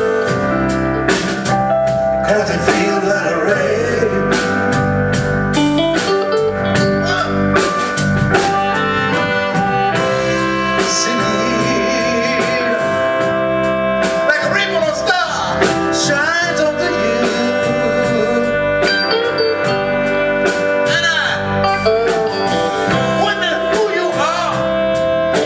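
Live blues band playing: electric guitar, bass, drum kit, trumpet and saxophone, with a singer's voice at times.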